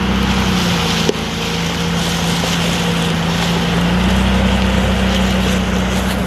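2001 Jeep Cherokee XJ driving on a dirt off-road trail: engine running steadily under an even hiss of tyre and road noise. The engine note grows a little stronger about four seconds in. A single sharp knock comes about a second in.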